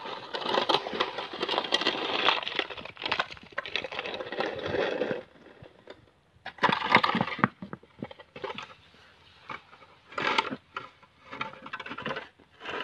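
A child's plastic snow shovel scraping along a driveway under a thin layer of snow, continuously for about five seconds, then in a few shorter separate scrapes.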